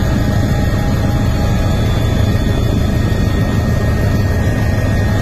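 Steady, loud engine noise of an aircraft heard from on board, a constant low rumble with no pauses.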